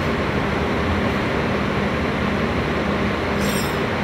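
A large diesel bus engine idling steadily, a constant low drone, with a short high hiss about three and a half seconds in.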